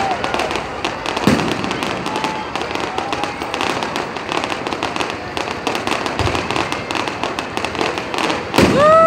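Fireworks crackling: dense, rapid crackles and pops from bursting shells, with a deeper thump about a second in. Near the end a loud, drawn-out whoop rises over the crackle.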